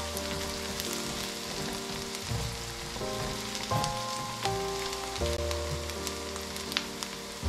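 Onions frying in hot oil in a pot, a steady crackling sizzle on their way to golden brown, under soft background music.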